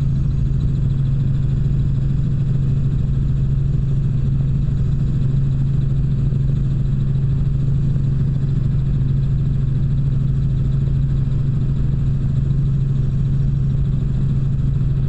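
Helicopter in flight heard from inside the cabin: a steady, low drone of engine and rotors that does not change.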